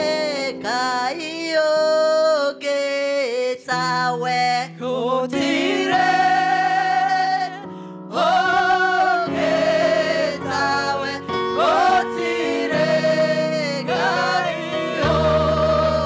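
Gospel singing by men's and women's voices over an instrumental accompaniment of long held bass notes that change every few seconds.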